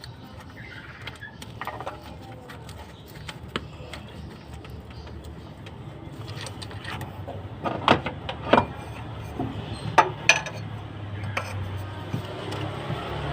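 A low steady hum with a few sharp knocks or clicks, bunched about two-thirds of the way through.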